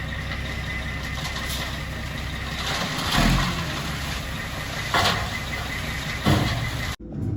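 Truck engine running steadily while a load of asphalt millings is delivered, with three louder swells of noise partway through. The sound cuts off suddenly near the end.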